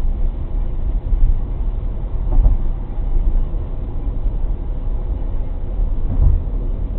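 Steady low road and tyre rumble heard inside a car cruising at about 80 km/h, with two brief thumps, one about two and a half seconds in and one near the end.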